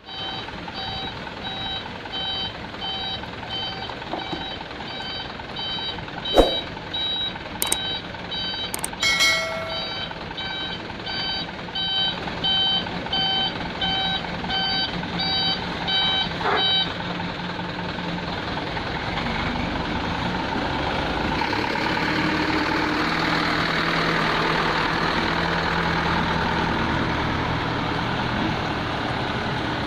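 Heavy vehicle's reversing alarm beeping steadily, about two beeps a second, over diesel engine noise, with a few sharp knocks in between. The beeping stops about halfway through and the diesel engine then runs louder and steadily.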